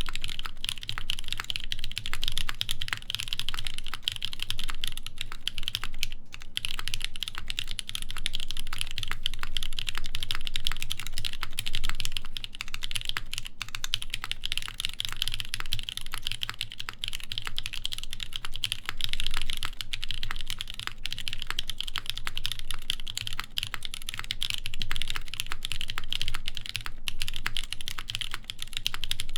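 Continuous fast typing on a Keycult 2/65 mechanical keyboard with lubed NovelKeys Cream linear switches, a full brass plate and GMK keycaps: a dense, unbroken stream of key strikes.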